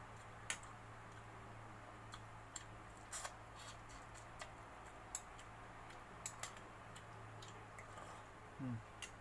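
Scattered light clicks and scrapes of a metal spoon against a glass bowl, with eating sounds, while a man eats rice and fried fish, over a steady low hum. A short rising vocal sound comes near the end.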